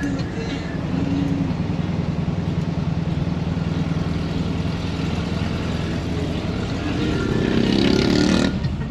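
VW Kombi van's engine and road noise heard from inside the cab while driving, a steady hum that grows louder near the end.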